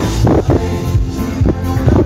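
Live gipsy-rumba band music, instrumental at this moment, with sustained chords and a regular beat of sharp strokes about twice a second.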